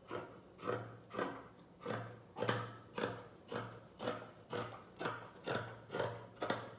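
Scissors cutting across a cotton t-shirt, a run of snips at about two a second.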